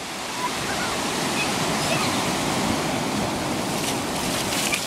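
Ocean surf breaking and washing up the shallows in a steady hiss of foam and water.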